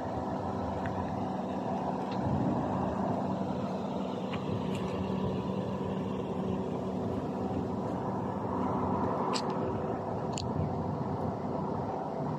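Steady engine-like hum with a few faint low tones running through it and an occasional faint click.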